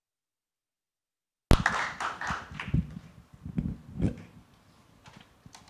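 Dead silence for about a second and a half, then a stage microphone being handled and taken off its stand: a sudden loud bump, a rustle, and a few dull knocks that fade out.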